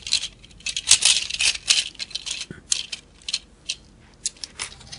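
Hard plastic Mini-Pla toy vehicles (Engine Gunpherd and Engine Carrigator) clicking and rattling in the hands as the small car is seated onto the back of the larger carrier. It is a quick run of light taps and clatters, busiest about a second in.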